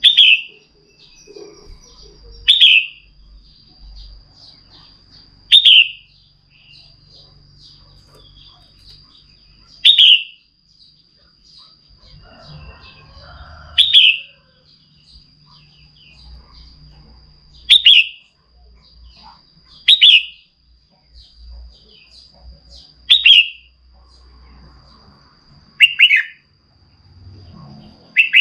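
Red-whiskered bulbul giving short, loud, down-slurred calls, about ten in all, one every two to four seconds: a female's call used to stir up male bulbuls.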